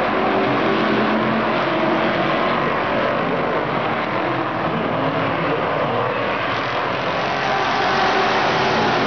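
A pack of stock cars racing around a paved oval track, their engines running together in a loud, steady drone.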